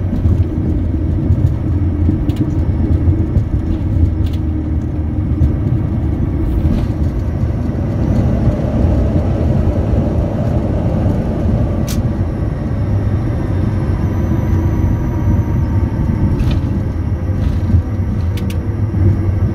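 Bombardier Challenger 350 business jet rolling slowly along the runway after landing, heard on board: a steady low rumble of its idling turbofans and the tyres on the pavement. A faint whine falls away in the middle, and there are a few faint clicks near the end.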